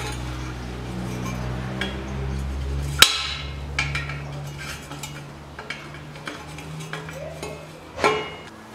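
A steel spanner clinking and clicking against an oxygen sensor as it is tightened into a new exhaust front pipe. There is a sharp ringing clink about three seconds in and another near the end, with lighter ticks between them.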